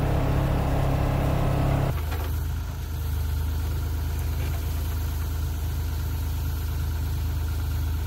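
Bobcat E42 mini excavator's diesel engine running steadily while it lifts a log. In the first two seconds a different engine with a higher hum runs, and it cuts off abruptly where the excavator takes over.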